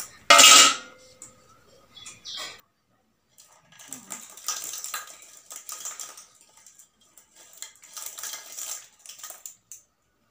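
A stainless steel bowl clanks loudly just after the start, then crisp fried puris rattle and tumble out of the tipped steel bowl onto a banana leaf in several bouts of light clatter.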